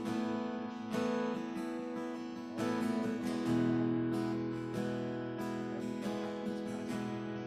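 Live worship band playing: acoustic guitar strumming steady chords, with lower notes joining about halfway.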